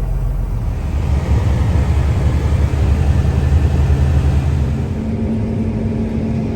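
Heavy vehicle engine running with a steady low rumble that grows louder for a few seconds, then settles; a steady hum comes in near the end.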